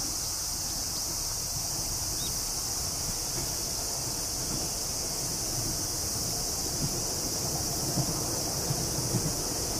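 Steady high-pitched insect chorus with low wind noise on the microphone. In the second half the low rumble of an approaching train on the steel railway bridge builds, with a few faint knocks near the end.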